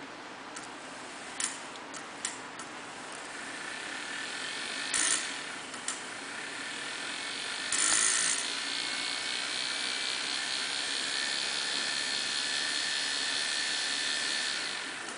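Brushed DC motor armature spinning in the field of an external permanent magnet, without its yoke: the commutator brushes make a whirring hiss with a steady whine. The whir builds over the first few seconds, holds steady and drops off just before the end, with a few sharp clicks in the first seconds and a brief loud scrape about eight seconds in.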